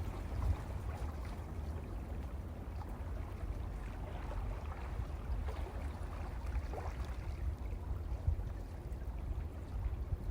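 Sea waves washing over rocks on a rocky shore: continuous, uneven water noise with a strong low rumble underneath.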